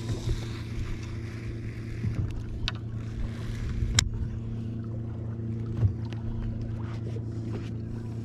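A steady low mechanical hum from the bass boat, with a few sharp knocks and clicks, the loudest about four seconds in.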